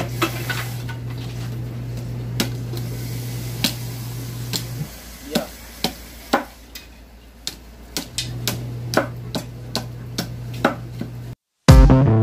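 A bolo knife chopping into wood on a wooden bench: sharp strikes at an uneven pace, one or two a second, over a steady low hum that stops about five seconds in and returns about three seconds later. Near the end the sound cuts off and music begins.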